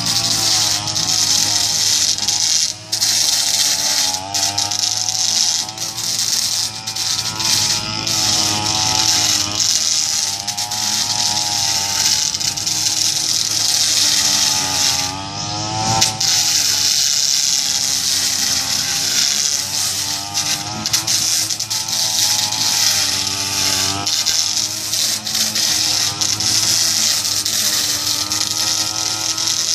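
Kazumi SUM 328 backpack brush cutter engine running hard, its pitch rising and falling as the throttle is worked. The spinning blade scrapes and grinds against concrete pavement throughout, throwing sparks.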